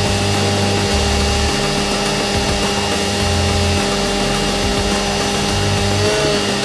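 Stick welding: a continuous arc crackle and hiss over the steady hum of a running engine-driven machine, with no change in level.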